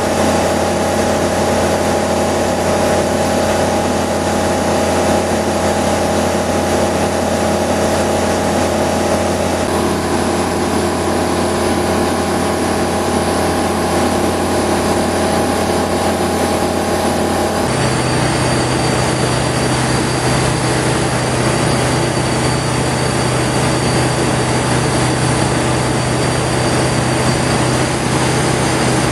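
Flight Design CTSW light-sport aircraft's Rotax 912 four-cylinder engine and propeller heard from inside the cabin: a steady drone in flight. The pitch of the drone shifts abruptly about eighteen seconds in and then holds steady again.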